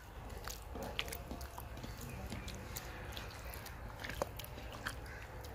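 A hand mixing and rubbing a yogurt and spice marinade into raw fish pieces in a clay bowl: scattered soft, wet squelches and clicks.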